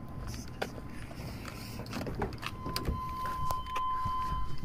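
A steady electronic beep tone starts about two and a half seconds in and holds, over scattered light clicks and a low rumble.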